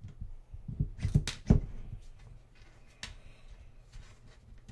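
Handling knocks and clicks of a keyed stainless steel shaft being pushed through a small metal tailstock housing: a quick cluster of knocks about a second in, the loudest a dull thump, then a single click and a few light taps.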